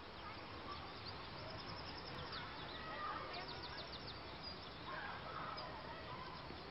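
Outdoor ambience with birds chirping, including quick runs of high repeated notes, over a steady low rumble.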